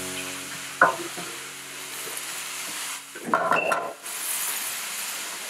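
Wooden spoon stirring and scraping diced vegetables as they sauté in a stainless steel pan, with a sharp tap about a second in and a louder scrape a little past the middle.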